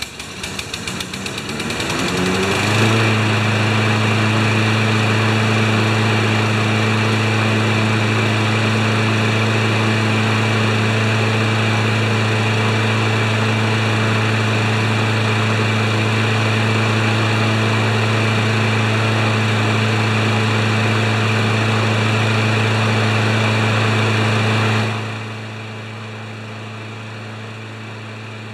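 Briggs & Stratton Quantum 190cc single-cylinder engine on a Craftsman push mower, rising in pitch as it comes up to speed over the first two to three seconds and then running steadily at an even speed. It has just been started after flooding from being tilted on its side. About three seconds before the end it turns much quieter while still running at the same speed.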